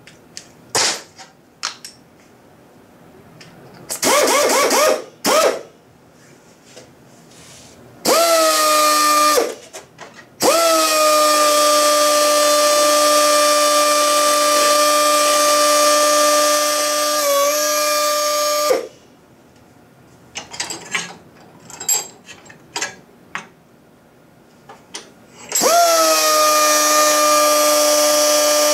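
Pneumatic die grinder spinning up with a rising whine and running at a steady high whine against an aluminum radiator pipe. It runs briefly about eight seconds in, again for about eight seconds, and starts up once more near the end. Before it and in the gaps come a few clicks and a short noisy burst.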